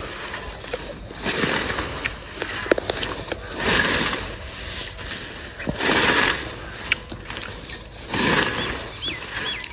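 Long-handled sickle swung through a stand of leafy green fodder, each stroke a swishing cut through the stems, about four strokes at an even pace. A bird chirps briefly near the end.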